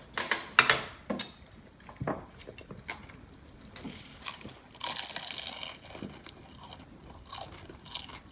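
Biting into and chewing a reheated deep-fried chicken spring roll: a few sharp crunches in the first second or so, then softer chewing, with a longer crunchy stretch about five seconds in. The wrapper is somewhat crisp, but not very crisp.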